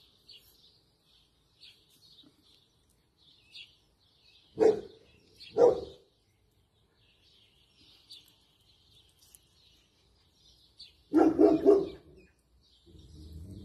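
A dog barking: two single barks about a second apart, then a longer bout of barking near the end. Faint bird chirps run underneath.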